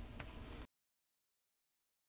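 Near silence: faint room tone with one light tick, then the sound track cuts off to dead digital silence less than a second in.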